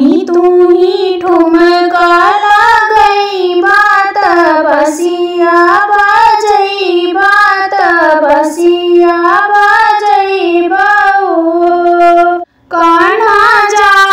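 A woman singing a sohar, a North Indian folk birth song, solo, in a high melody that bends and wavers from note to note. There is a short break for breath about twelve and a half seconds in.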